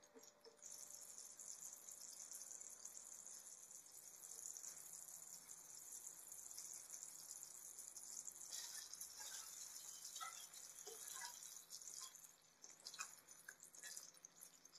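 Faint sizzling of chicken curry cooking in a pan: a steady hiss that starts about a second in, with scattered small pops and clicks in the second half.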